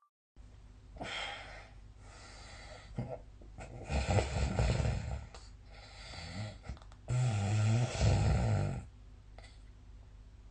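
A sleeping person snoring: softer breaths, with two loud snores, one about four seconds in and a longer one from about seven to nearly nine seconds.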